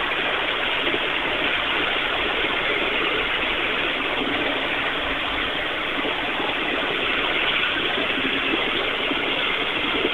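Steady running noise of a 5-inch gauge ride-on loco under power on an uphill grade: its chain-driven axles and wheels on the rails make an even rushing noise with no distinct knocks.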